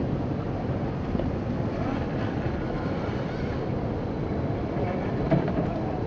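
1/10-scale RC rock crawler's 35-turn brushed electric motor and gear drivetrain running as it crawls over rocks, the whine rising and falling with the throttle, with a sharp knock about five seconds in.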